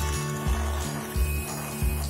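Background music with a steady beat, about three beats in two seconds, over the whirr of an electric hand mixer beating cream.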